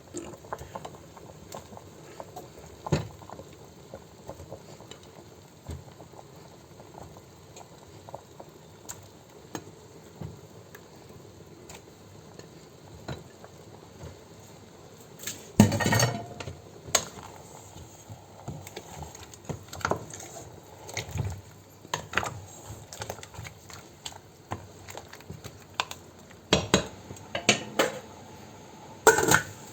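Pots and utensils knocking and clinking in a kitchen as peeled potato and plantain go into a pot of simmering chicken, with scattered light clinks, a louder clatter about halfway through and several knocks near the end.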